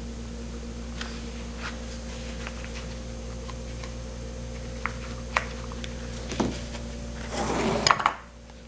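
Steady electrical hum under scattered light taps and clicks of hand work, with a louder brief scraping rustle near the end, after which the hum cuts off.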